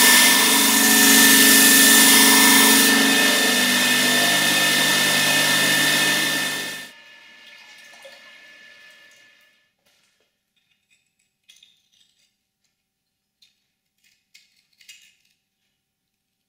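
Belt grinder running with a steel knife blade held against the belt: a loud, steady grinding with a high whine. It cuts off abruptly about seven seconds in, leaving a faint hum that dies away, then a few faint clicks.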